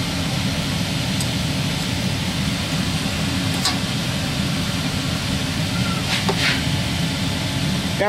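A steady mechanical drone throughout, with a few faint light metal clicks as small engine valve parts are handled.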